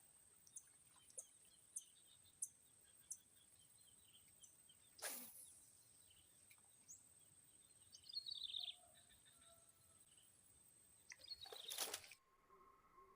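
Quiet outdoor ambience with a steady high thin whine and a short bird call about eight seconds in. Evenly spaced light ticks sound over the first three seconds, and two brief swishes come about five and twelve seconds in. Just after twelve seconds the sound cuts abruptly to a steady hum of a few tones.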